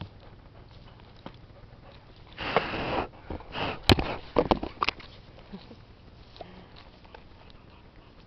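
Boxer dog sniffing and snuffling right against the microphone: a longer breathy sniff about two and a half seconds in, then a quick run of short sniffs with a sharp knock among them about four seconds in.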